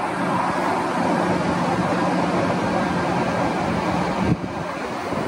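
A woman's steady low hum on a long exhale, Bhramari (humming bee) breathing, ending about four seconds in. Steady wind rush on the microphone runs underneath.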